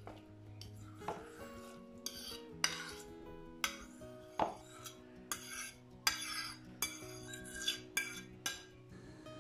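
A fork scraping mashed broccoli off a ceramic plate into a bowl: about ten short scrapes and clinks of utensil on plate, over soft background guitar music.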